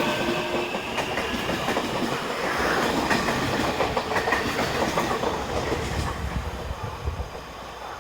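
Taiwan Railways EMU800 electric train running on the track, its wheels clattering over the rails in quick clicks. The sound fades toward the end.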